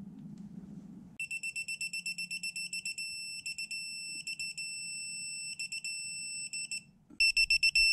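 Digital torque wrench beeping as it tightens the oil drain plugs. It starts with a rapid run of high beeps that turns into a long steady tone broken by short runs of beeps. Near the end come a louder run of beeps and a held tone, the signal that the set torque of 22 foot-pounds is reached.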